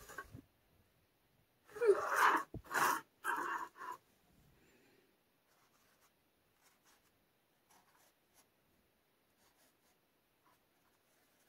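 A person sneezing, a loud brief fit of three bursts about two seconds in, followed by faint scratches of a felt-tip marker on canvas.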